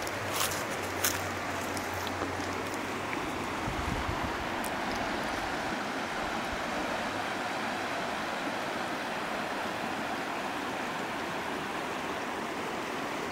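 Shallow rocky stream running over stones, a steady rushing of water. A couple of sharp clicks sound in the first second or so.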